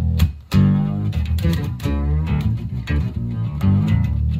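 Electric bass played through two octave-down effects at once, an EBS OctaBass and an Eventide H9's octave-down, each feeding its own speaker cabinet: a run of plucked notes with a heavy added sub-octave. There is a short break about half a second in.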